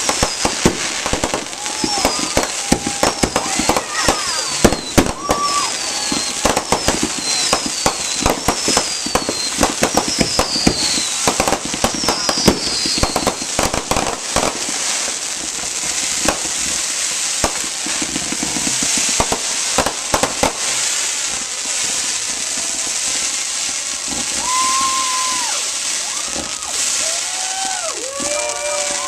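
Fireworks going off: rapid bangs and crackling, with a run of short high falling whistles in the first half. Later it settles into a steadier crackling hiss with scattered bangs.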